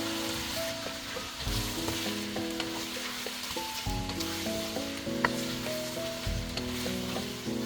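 Food sizzling and frying in a hot pan, a steady hiss with a few light clicks, over soft background music.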